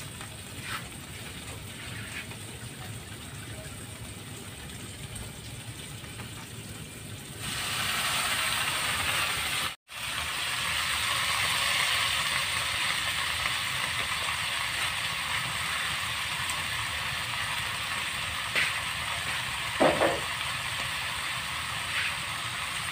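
Pan of water spinach (kangkong) and vegetables sizzling on the stove, growing louder about seven and a half seconds in. The sound cuts out for an instant near ten seconds, and there are a few light utensil knocks later on.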